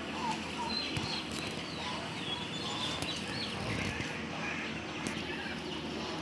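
Faint short bird chirps over a steady background hiss, with a few light clicks.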